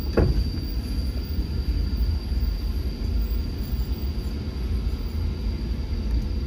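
Low, steady rumble of a vehicle driving on a rough road, with a short falling tone just after the start.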